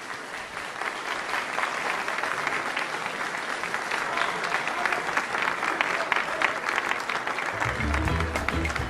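Crowd applauding, many hands clapping steadily. A band starts playing again about seven and a half seconds in.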